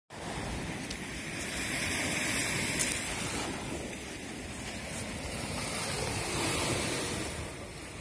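Black Sea surf washing onto the beach, a steady rushing noise that swells and eases, with wind buffeting the microphone. One short knock about three seconds in.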